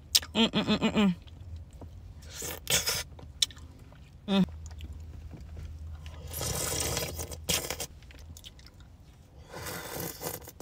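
Close-up eating sounds of a melting Outshine pineapple frozen fruit bar: biting into it, slurping and chewing. Short hums of enjoyment come near the start and again about four seconds in.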